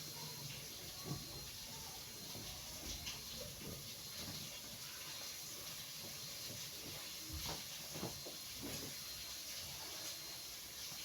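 Faint rustling and a few soft knocks from clothes being handled and sorted, over a steady background hiss.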